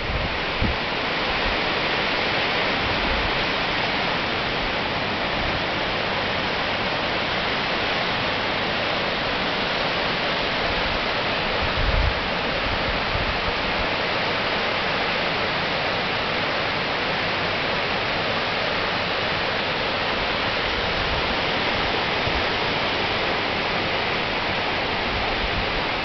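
Ebor Falls waterfall: a steady, even rush of falling and cascading water. A brief low thump comes about twelve seconds in.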